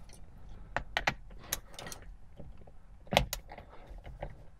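Torque wrench working on a steering-wheel centre nut: a scattered series of clicks and knocks as the nut is tightened, with the loudest knock about three seconds in.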